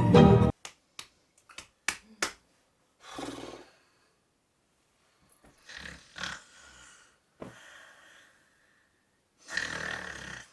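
Music breaks off abruptly, followed by a few sharp clicks. Then a person snores in several separate breaths with pauses between them.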